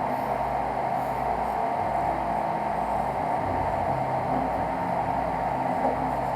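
Prusa i3 3D printer running a print: a steady fan hiss, with the stepper motors humming in low tones that change pitch every fraction of a second as the print head moves.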